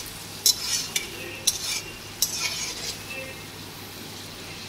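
Prawns frying in oil in an aluminium kadai, stirred with a wooden spatula: four sharp knocks of the spatula against the pan in the first couple of seconds, each followed by a burst of sizzling, then a steady faint sizzle.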